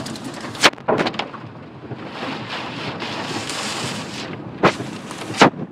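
Tornado wind and rain rushing against a car, heard from inside the cabin, with several sharp bangs of flying debris striking the car, clustered about a second in and again near the end.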